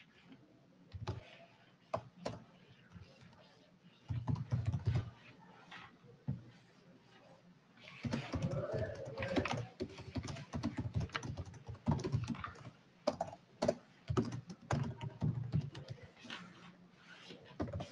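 Typing on a computer keyboard. A few scattered key clicks come first, then a short burst about four seconds in, and steady typing from about eight seconds in.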